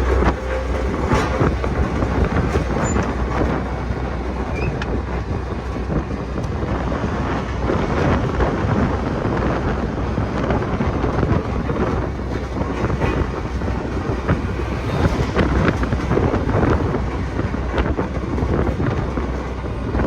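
Heavy diesel engine of a Sakai road roller running steadily under a dense, even noise with a constant low hum.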